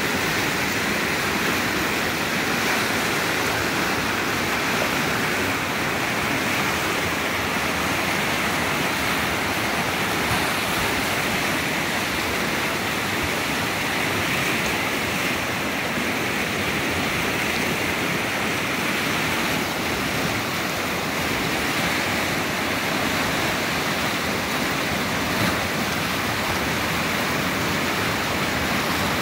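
Fast river rushing through whitewater rapids, a steady, unbroken wash of churning water.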